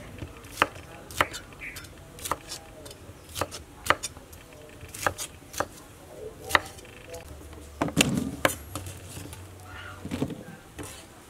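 Kitchen knife chopping green bell pepper on a wooden cutting board: single sharp knocks at an uneven pace, about one a second. Near the end come a few quicker clattering knocks as the pepper pieces are pushed off the blade into a plastic colander basket.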